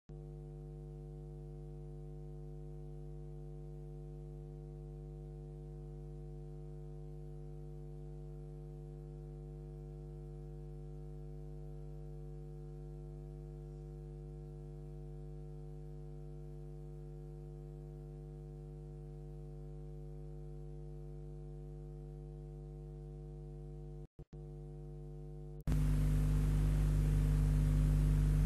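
Steady electrical mains hum on the soundtrack, several steady tones stacked together. It drops out for a split second a little after 24 s. About three seconds before the end it jumps much louder, with hiss added.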